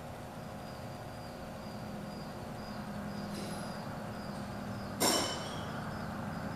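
Metal tools clanking on the tractor during hands-on repair work: a faint knock about three seconds in, then one sharp clank about five seconds in, over a low steady hum.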